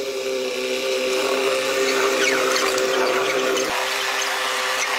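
Narrow-gauge railway train rolling along light track, a steady hum under it. From about two seconds in come repeated high squeals and screeches of steel wheels on the rails. The hum stops shortly before the end.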